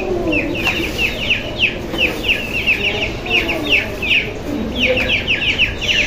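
Chicks peeping: a rapid, continuous string of short, high, falling cheeps, several a second. Lower clucking from chickens runs underneath.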